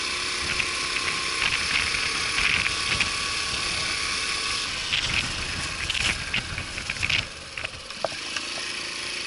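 Honda Super Cub 50's 49 cc four-stroke single running on the move, under a steady rush of noise with scattered light rattles. It goes quieter about seven seconds in.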